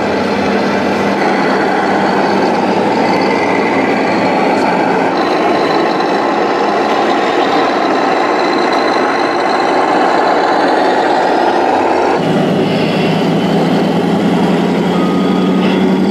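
Sound modules in radio-controlled Scania model trucks playing diesel truck engine sounds through small loudspeakers, a steady running drone that changes abruptly about twelve seconds in. Short electronic reversing beeps sound near the end.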